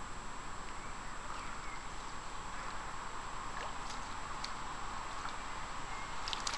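Steady rush of flowing river water, with a few light splashes and drips as a landing net is dipped into the river; the splashing grows busier near the end.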